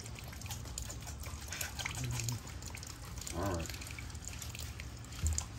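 Water dripping and trickling onto a wet concrete kennel floor as a dog is bathed, over a low steady hum. A short vocal sound rises and falls about three and a half seconds in.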